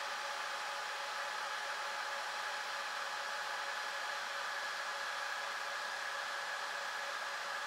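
Dell PowerEdge 2650 server's cooling fans running steadily: an even rushing hiss with a few faint, steady whining tones in it.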